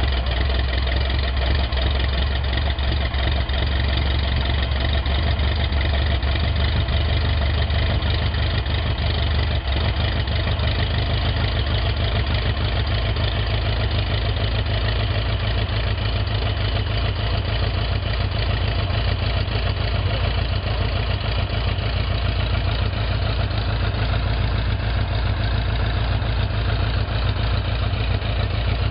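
Auster V light aircraft's Lycoming O-290 four-cylinder air-cooled engine and propeller running steadily at idle, on its first engine run after restoration.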